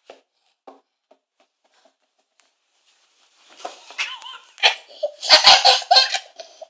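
A few faint taps, then about halfway through a toddler's high-pitched voice starts up, ending in a run of short, rapid bursts.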